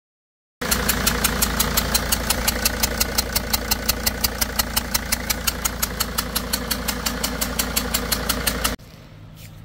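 Mercedes T1N Sprinter diesel engine idling, with a sharp regular tick about six times a second over a steady low drone. The number-three injector seal is leaking heavily. The sound starts abruptly and cuts off near the end.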